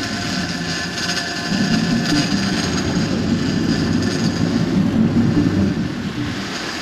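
Sportfishing boat's engine running steadily while trolling, mixed with wind and water noise.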